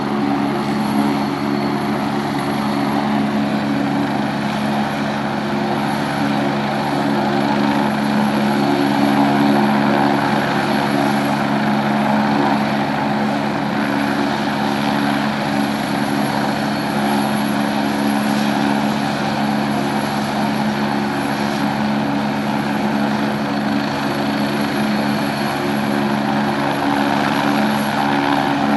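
Rescue helicopter running on the ground with its rotors turning, a steady, unbroken drone that neither rises nor falls.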